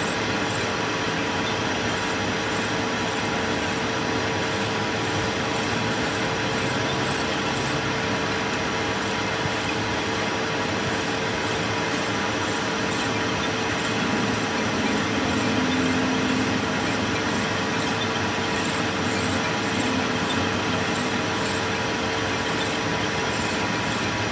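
Shaft-repair metalwork running steadily: a constant machine hum under a dense, harsh noise that holds level throughout, swelling slightly about two-thirds of the way through.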